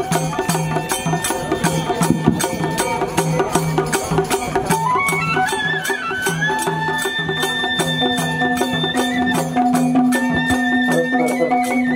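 Live Nepali Tappa folk music: a madal drum plays a brisk repeating pattern under sharp, even beats. A melody instrument played into a microphone climbs about halfway through and then holds a high note.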